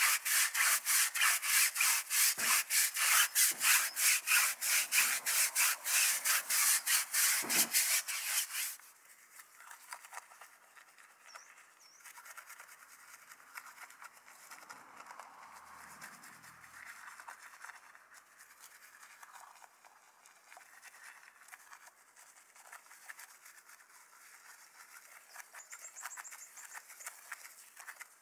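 Stiff tyre brush scrubbing a wet, foamy rubber tyre sidewall in rapid back-and-forth strokes, which stop about nine seconds in. After that, a soft bristle detailing brush swishes faintly over the wet alloy wheel around the hub and lug nuts.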